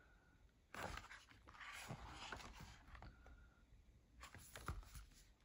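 Faint rustling and scraping of the stiff paper pages of a small hardback picture book being turned by hand, with a slightly sharper rustle about a second in.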